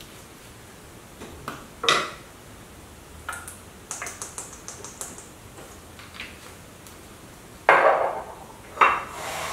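Tabletop handling: a small hot sauce bottle is uncapped and shaken over a plate, giving a quick run of light clicks a few seconds in, then two louder knocks near the end as things are set down on the table.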